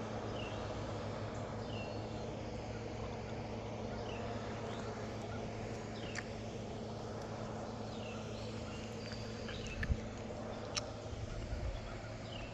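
Outdoor ambience: a steady low rumble with short, falling bird chirps about once a second. A single sharp knock comes near the end, followed by a few lighter ones.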